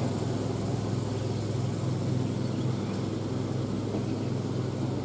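Steady low engine hum, as of a motor vehicle idling, with a slight even pulsing.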